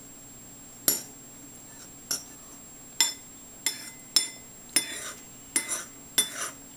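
Metal spoon scraping and clinking against a ceramic bowl while gathering up food: about eight sharp clinks, spaced irregularly and coming faster after the first few.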